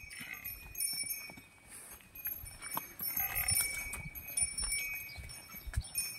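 Hooves of two Khillari bulls walking on a dirt road: faint, irregular soft knocks of their steps.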